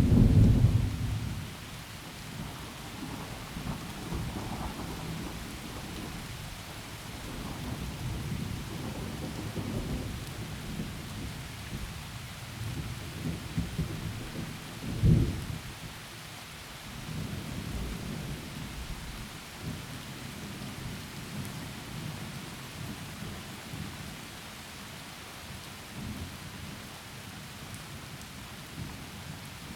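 Thunderstorm: heavy rain falling through trees with a steady hiss, under rolling thunder. A loud thunderclap right at the start, rumbles that swell and fade, and another sharp clap about halfway through.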